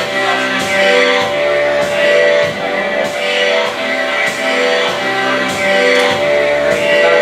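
Loud music with guitar and a steady beat.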